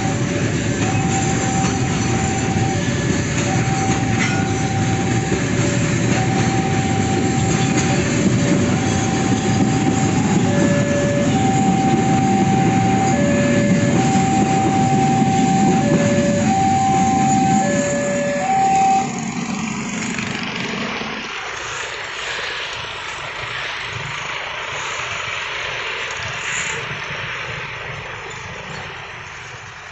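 A freight train of covered wagons and flatcars rolls past with a steady low rumble, while the level-crossing alarm repeats a two-tone chime, high then low. About two-thirds of the way through, the alarm stops and the rumble dies away with the last wagons. Road traffic of motorcycles and a small truck then moves off across the crossing.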